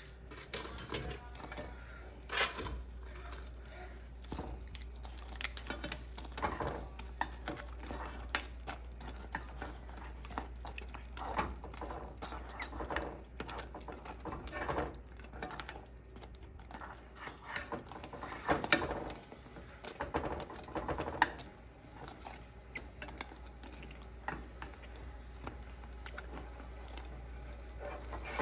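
Wooden chopsticks tapping and scraping against a saucepan as chicken wings are turned in thick sauce: irregular light clicks and knocks, a few louder ones about two-thirds of the way through, over a low steady hum.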